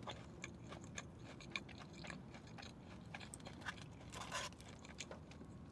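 A person chewing fried onion rings: faint, irregular crunches and mouth clicks.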